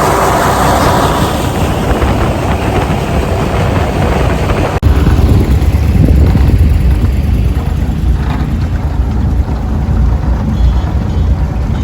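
An engine running steadily at speed with heavy wind rumble on the microphone. A little under five seconds in the sound breaks off abruptly and goes on as a deeper, louder rumble.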